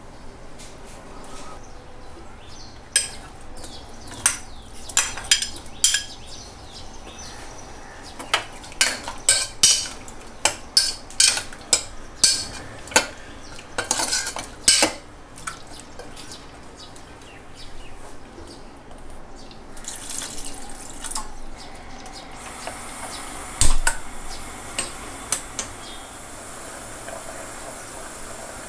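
A steel spoon clinking and scraping against the metal sides of an open pressure cooker as the curry is stirred: a quick run of sharp clinks, then a few more later on. Near the end a steady soft hiss from the pot on the gas flame sets in.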